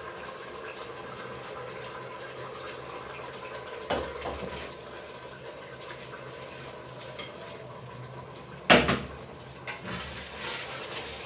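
Kitchen cooking sounds: a steady hiss from a pot on the heat, broken by two knocks of cookware, one about four seconds in and a louder one near nine seconds.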